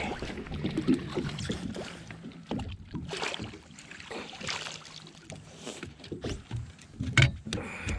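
A hooked fish splashing beside a boat, then a landing net dipped into the water and lifted aboard: water sloshing and scattered knocks and rattles of the net and its handle against the fibreglass hull, the loudest knock near the end.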